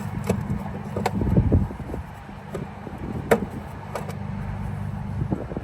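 Steady low rumble of an idling truck engine, with a few sharp metallic knocks over it.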